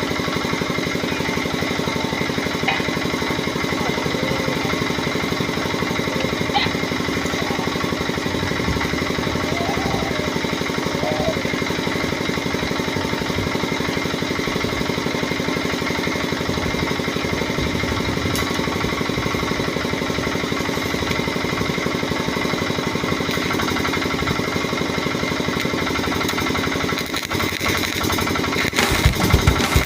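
A machine running steadily with a fast, even pulse; the sound changes and gets louder near the end.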